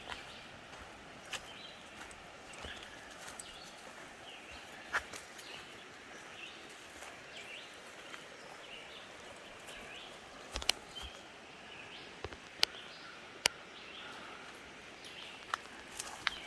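Footsteps on the forest floor, with sharp snaps of twigs underfoot scattered through, the loudest a few in quick succession past the middle. Birds call faintly and repeatedly in the background.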